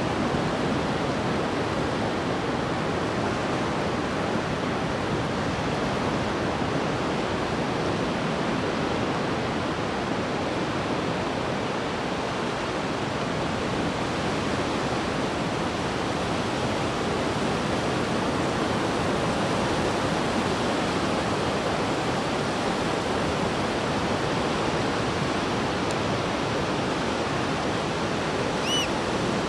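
Steady, even noise of ocean surf breaking on a sandy beach. A single short whistled bird call sounds about a second before the end.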